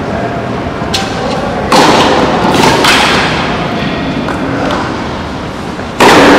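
Tennis ball struck by rackets in a baseline rally: sharp hits roughly two seconds apart, echoing in a large covered hall, over a steady background noise that grows louder about a second and a half in and again near the end.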